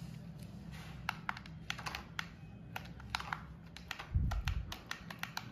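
Irregular sharp plastic clicking and rattling from two toy RC jeeps shoving nose to nose, over a low steady hum. A louder dull thump comes a little past four seconds in.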